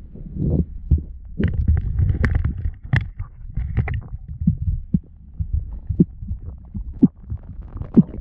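Muffled underwater knocking: many irregular thuds and sharp clicks over a low rumble as gloved hands and the camera scrape and bump against river rocks while grabbing crayfish.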